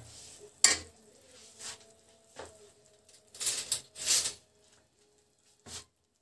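Metal spatula scraping and clinking against a pan of thick masala as it is stirred, in short scattered strokes, with a louder cluster a little past halfway and one last knock near the end.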